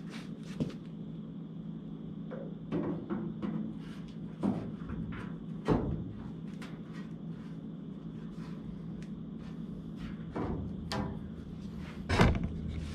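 Sheet-metal cowl panel being laid into place and shifted against the car body, giving a scatter of light knocks and clunks. Two louder clunks come about halfway through and near the end.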